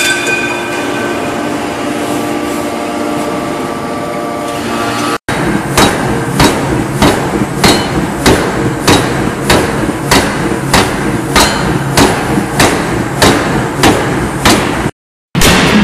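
Power forging hammer striking a red-hot titanium ring, blows repeating evenly about twice a second. Before the blows start there are a few seconds of steady machine hum, opened by one ringing metallic clang.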